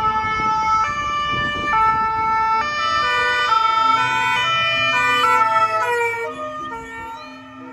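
Ambulance siren alternating between a high and a low note about once a second, over faint engine and road noise. Near the end it fades and drops slightly in pitch as the ambulance goes by.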